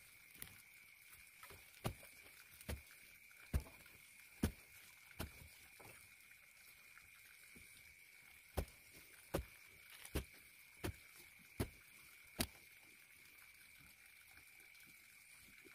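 Dull thuds of a wooden digging stick jabbed into soil to loosen the earth for a post hole, roughly one a second, with a pause of a couple of seconds partway through.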